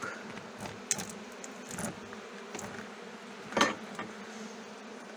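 Honeybees humming steadily from an open hive, with a few clicks and scrapes of a metal hive tool on the wooden frames; the loudest knock comes about three and a half seconds in.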